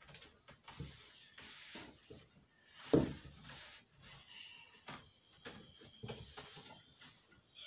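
Rummaging and handling noises: short rustles and clatters of things being moved about, with one sharp knock about three seconds in.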